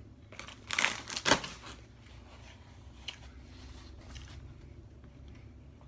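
Crinkly, crackling crunch of snack food, chips or cheese puffs, handled and bitten close to the microphone, loudest between about half a second and a second and a half in, then only faint small clicks.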